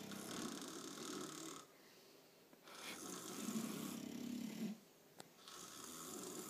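Snoring: three long snores with short quieter pauses between them, and a brief click about five seconds in.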